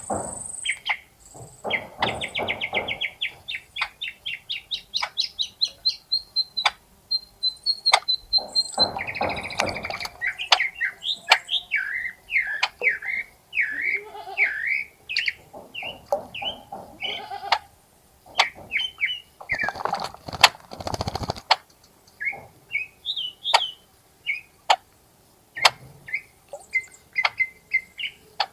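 Wild birds singing and calling: a run of fast repeated trill notes rising in pitch, then many short varied chirps and whistles. There are scattered clicks and a few short bursts of splashing water from birds bathing.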